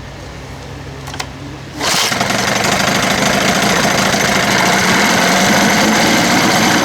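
1977 Evinrude 15 hp two-cylinder two-stroke outboard motor starting about two seconds in and then running steadily.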